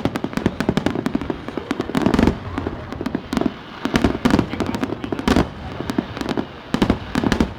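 Aerial fireworks shells bursting one after another: a dense, unbroken run of sharp bangs and crackles, with several heavier bangs clustered together.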